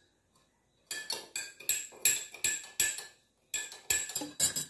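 Metal spoon stirring in a glass jar, clinking against the glass about four times a second. The clinking starts about a second in and pauses briefly around three seconds in.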